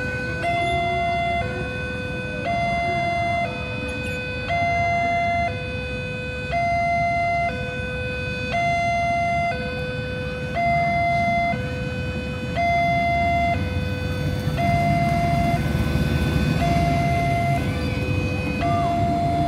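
An electronic two-tone warning alarm sounds steadily, alternating high and low notes about once a second. In the last few seconds the diesel engine of an approaching CC 201 locomotive grows louder underneath.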